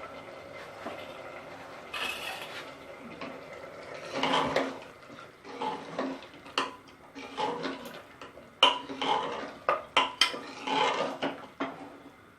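A spatula scraping and knocking against a pressure cooker as potatoes are stirred and fried in it with tomato masala. There is a steady hiss for the first few seconds, then about four seconds in the irregular knocks and scrapes begin.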